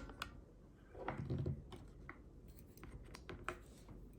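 Faint, scattered light clicks and ticks of small metal lock parts being handled, as springs are set into the pin chambers of a Schlage Everest lock cylinder during reassembly.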